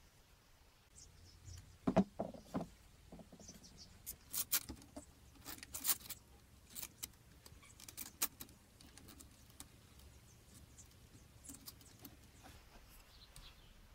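Hand-handling clicks and clinks of a homemade wooden plow frame and its metal pins and bolts being fitted to a model tractor's rear hitch arms. The loudest knocks come about two seconds in, then a run of sharp clicks over the next several seconds, fading to lighter handling noise.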